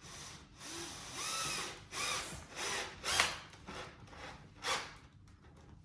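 Cordless drill-driver running in several short bursts into the wooden frame of a small upturned stool, driving screws; the motor whine rises and falls with each burst, the loudest about three seconds in.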